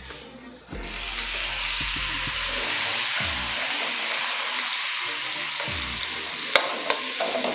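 Corned beef dropped into hot oil with sautéed garlic and onion in a stainless steel wok, sizzling suddenly and steadily from about a second in. Near the end a metal spatula clicks and scrapes against the wok as the meat is stirred.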